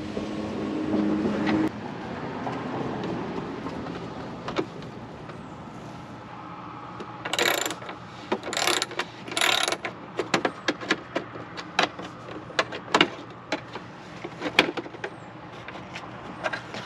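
Screwdriver working screws out of a 50cc scooter's plastic front cover: three short scraping bursts a little before halfway, then a long run of small clicks and taps. Near the end the plastic cover rattles as it is pulled loose.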